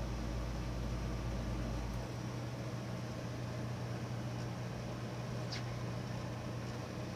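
Steady low machine hum, its deepest rumble dropping away about two seconds in, with a faint click near the end.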